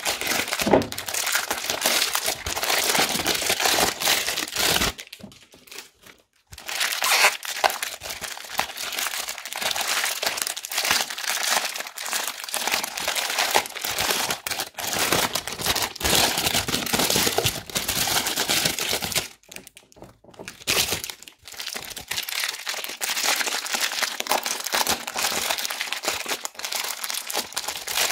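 Clear plastic bags packed with small foam beads squeezed and kneaded by hand: continuous crinkling of the plastic with crunching of the beads, pausing briefly twice.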